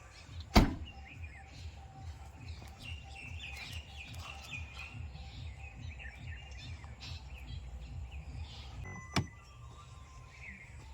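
Small birds chirping in short scattered calls over a steady low rumble. A sharp knock comes about half a second in, and a lighter one near the end.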